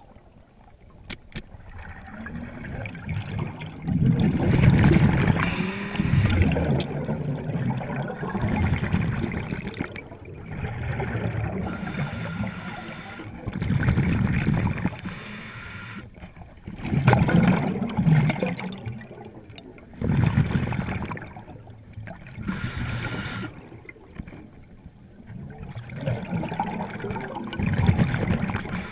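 Water gurgling in loud surges that rise and fall every few seconds.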